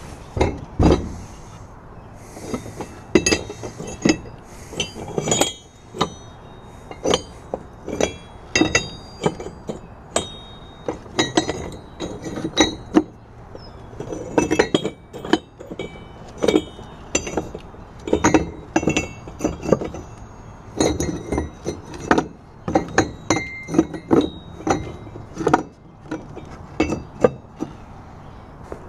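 Plasma-cut steel turbo flanges and brackets clinking and clanking against each other as they are picked up and shuffled in a wooden box: many separate knocks, each with a short metallic ring. A heavy thump about a second in.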